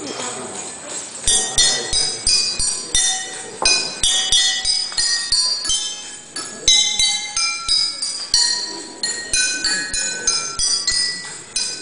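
A tune played on water-tuned drinking glasses struck with sticks: a quick run of ringing notes at changing pitches, each with a sharp tap, starting about a second in.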